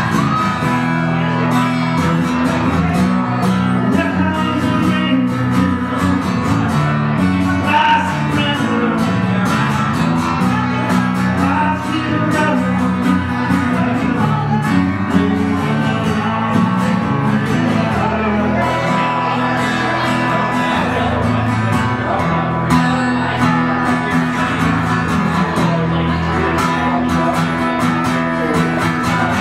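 Live acoustic guitar music, strummed and picked, with a voice singing over it.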